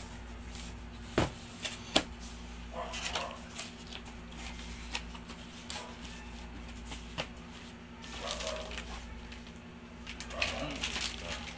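A cardboard helmet box being handled and opened: two sharp knocks about a second apart early on, then scattered lighter knocks and the rustle of cardboard flaps and packaging.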